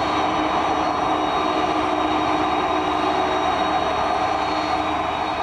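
Boeing 747-400 jet engines running at taxi power: a steady jet noise with thin high whining tones over it.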